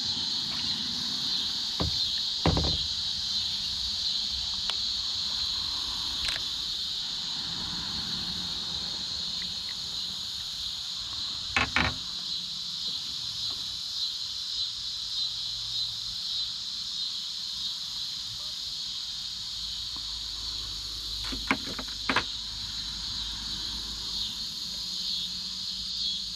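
A steady, high-pitched chorus of insects droning without a break. A few short knocks sound over it, one near the start, one about halfway and two close together near the end.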